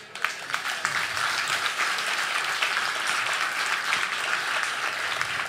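Audience applauding: a few scattered claps that swell within about a second into steady, dense applause.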